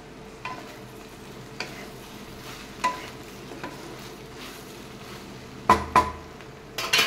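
Chopped okra and onion frying in a metal kadai with a steady low sizzle over a lowered flame, while a spatula stirs them, giving a few light scrapes and taps on the pan and two sharp knocks against it near the end.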